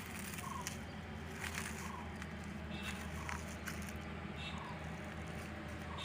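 Heavy diesel truck engine running at low revs, a steady low drone, with short high chirps coming every half second to second over it.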